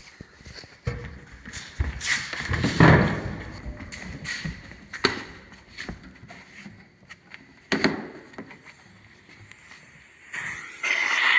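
Irregular thumps and knocks of a phone camera being handled and moved with its lens covered. A steady rushing noise starts near the end.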